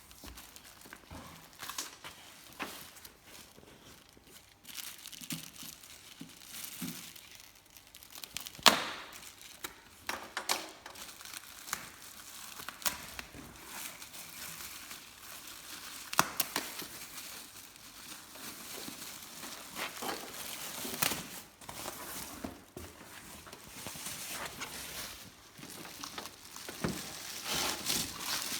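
TIG welding arc from a Hitbox TIG200PACDC welder, crackling and hissing unevenly, with scattered sharp clicks and pops.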